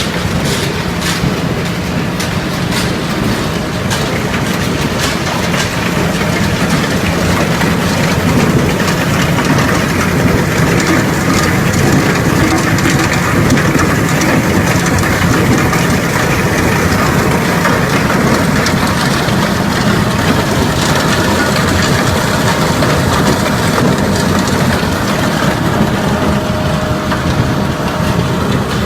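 Industrial ultrafine grinding mill running steadily: a loud, even machine drone with a low hum.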